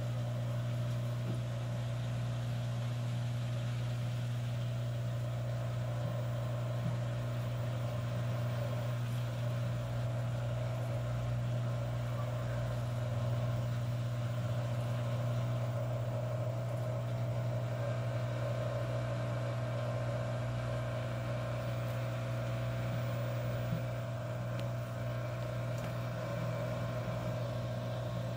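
LG Twin Wash Mini top-load washing machine running, its motor humming steadily as the drum turns the load of clothes.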